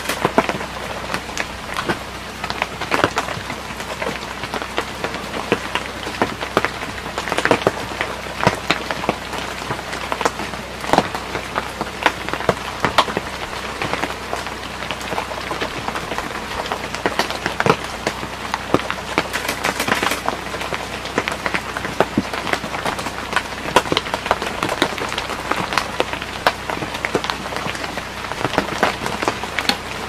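Steady rain-like pattering: a dense, irregular crackle of drops or ticks over an even hiss, with no bird calls.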